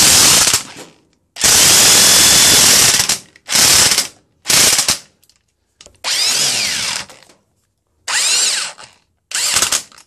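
Electric impact wrench with a 5/16-inch socket driving a hex-head Tapcon masonry screw into concrete block, run in about seven short bursts, the longest about a second and a half long near the start. Some bursts end in a falling whine as the motor spins down.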